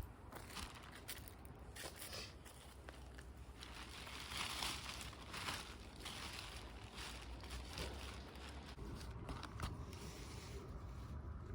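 Dry autumn leaf litter and twigs rustling and crackling in irregular crunches, densest a few seconds in.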